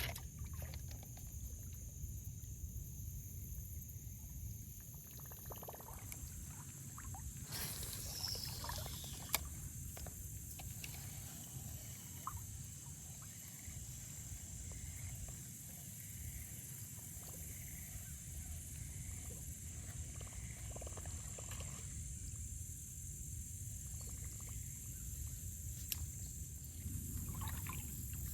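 Outdoor creekside ambience: a steady low rumble under a steady high-pitched hiss, with scattered light clicks and one sharp tick about nine seconds in.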